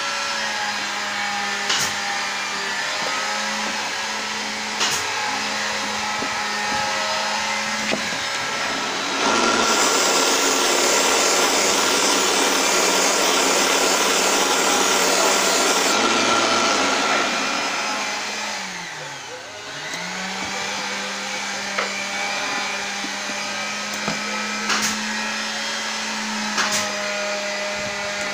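Small benchtop mini lathe's motor running with a steady whine while it spins a wooden dowel. From about ten to sixteen seconds a louder rasping rises over it as abrasive paper is pressed against the spinning wood. A little after that the motor's pitch drops and climbs back up, and a few sharp clicks come through.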